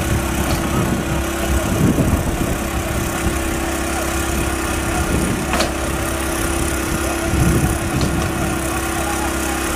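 A vehicle engine runs steadily with a low hum. Three faint sharp cracks come through it, the clearest about midway.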